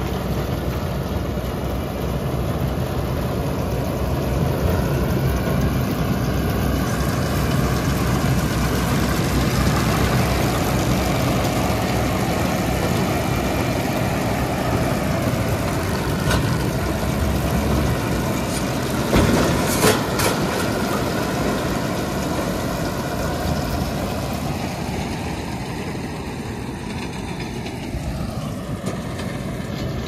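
Fendt 412 tractor's diesel engine running steadily under load while it pulls a Claas Rollant 255 round baler through a hay windrow, the baler's pick-up and rotor cutter running. A couple of sharp knocks come about two-thirds of the way through, and the sound eases off near the end as the rig moves away.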